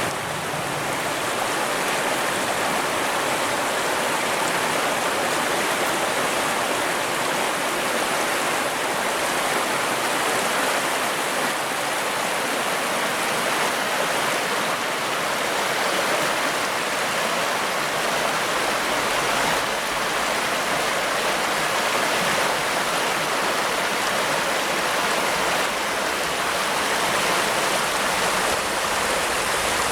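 Spring river in full flow, a steady, even rushing and bubbling of water.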